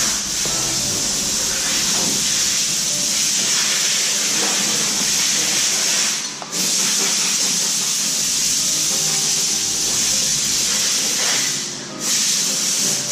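A loud, steady hiss that drops out briefly twice, about six seconds in and near the end, with a few faint knocks under it.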